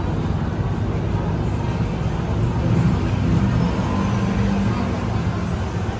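Street traffic: road vehicles running, a steady low rumble with an engine hum that swells a little around the middle.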